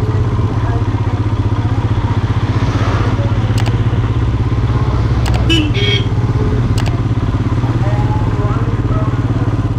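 Royal Enfield Himalayan 450's single-cylinder engine running steadily at low speed.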